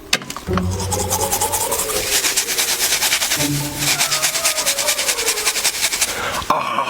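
Rapid rasping scrape, a quick run of many strokes a second that goes on for about six seconds and stops just before the end.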